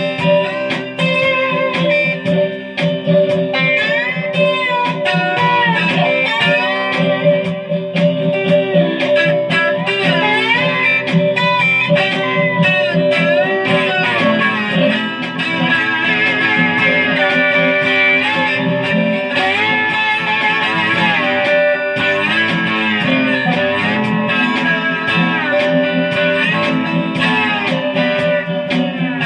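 Slide guitar playing: sliding notes glide up and down in pitch over steady low bass notes, in a blues style.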